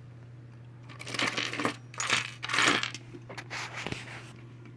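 Small toy figurines clinking and clattering together as they are sorted by hand, in several rattling bursts starting about a second in, then a few lighter clicks.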